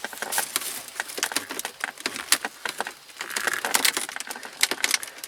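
Irregular plastic clicks and knocks as electrical connectors are unclipped and the center console unit's plastic trim is handled.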